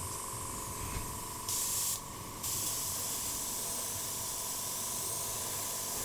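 Airbrush spraying paint: a steady hiss of air and paint, with a louder burst lasting about half a second near the two-second mark, a brief drop, then steady spraying again.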